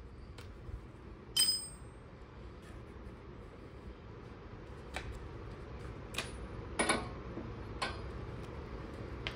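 A few light metallic clinks and clicks of hand tools being handled, with one brighter ringing clink about a second and a half in, over a quiet background.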